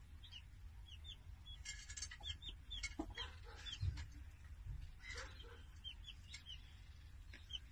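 A young chick peeping softly: short, high peeps about twice a second, with a broody hen sitting on the nest beside it.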